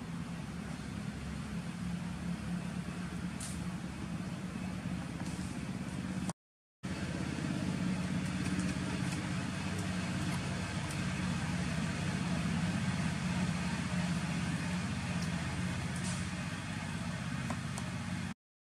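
Steady low hum of a running engine over a faint outdoor hiss. It drops out to silence briefly about six seconds in and again near the end.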